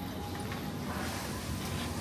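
Steady street ambience: an even background hum with faint music and voices mixed in.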